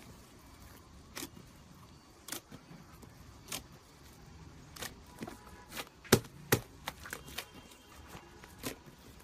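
Pink slime being squeezed and poked by hand, giving irregular sharp pops and clicks about once a second, the loudest two in quick succession about six seconds in.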